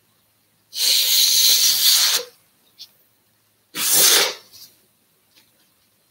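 Two forceful bursts of breath from a man. The first is a long hissy blast of about a second and a half, and the second is shorter, a couple of seconds later.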